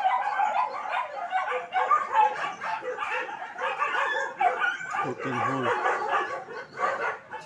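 A dog whining and yipping almost without pause in short high-pitched calls, with a brief deeper sound about five seconds in.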